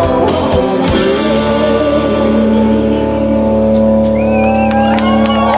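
Live band of acoustic guitar, electric guitars, banjo, bass and drums ending a song: a last drum hit about a second in, then the final chord held and ringing. Whistles and cheers from the audience come in near the end.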